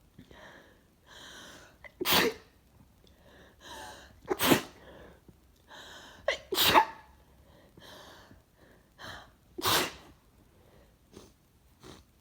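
A woman sneezing four times, each sneeze preceded by a breathy in-breath, with small sniffs and breaths between; she thinks she may be coming down with a cold.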